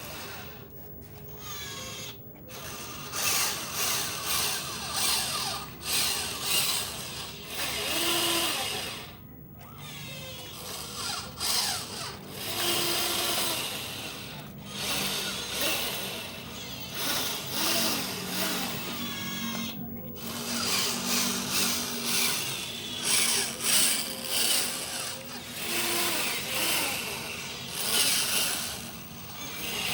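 Small electric motor and plastic gearbox of a cheap toy RC truck whirring, its pitch rising and falling as it speeds up and slows, with a few brief stops.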